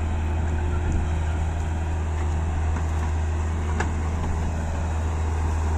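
Truck engine running steadily, a low even drone.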